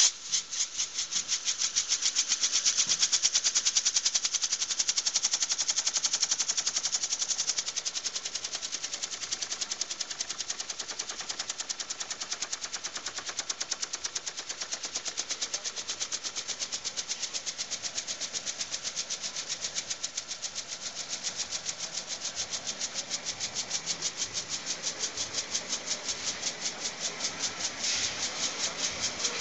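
Rapid, even train of hissing puffs, about five a second, from the flame jet of a small tripod fire sculpture. It is loudest for the first several seconds and a little softer after that.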